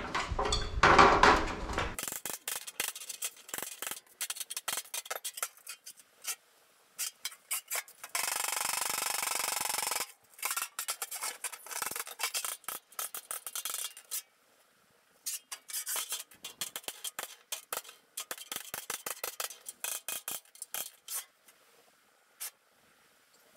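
Rusty steel rear engine lid of a 1955 VW panel van being handled and shifted on a concrete floor: scattered light metallic clinks and clanks with scraping, and a steady rasping scrape from about 8 to 10 seconds in.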